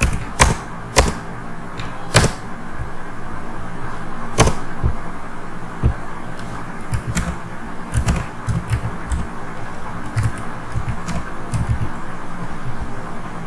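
Computer keyboard keys clicking in irregular single keystrokes as code is typed, most often in the second half, over a steady background hiss.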